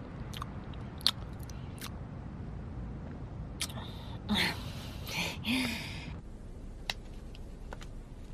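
A few sharp clicks, the loudest about a second in, then a young woman's breathy wordless giggles and murmurs between about four and six seconds in, over a steady low hiss.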